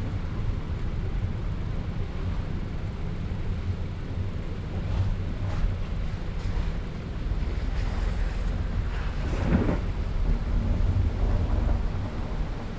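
Steady low rumble of a car driving slowly over a wet, slushy road, with wind noise on the microphone. There are a few short crackles in the second half and one louder one about three-quarters of the way through.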